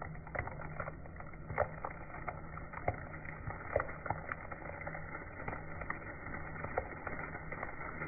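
Slowed-down crackling and crunching as a car tire rolls over a papery wasp nest and a pine cone, with many scattered sharp cracks over a steady low hum.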